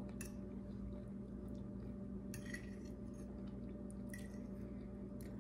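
Steady low room hum with a few faint, scattered clicks and clinks of cutlery and dishes during eating.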